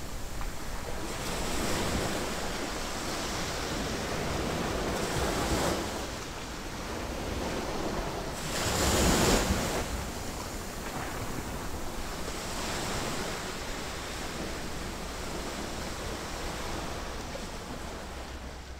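Ocean surf washing onto a shore, swelling and easing in waves, with the biggest wave breaking about nine seconds in. It fades out at the very end.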